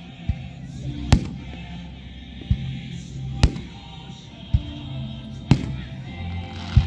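Background music with a slow, heavy beat: a sharp hit about every second, the louder ones about two seconds apart, over a sustained low bass line.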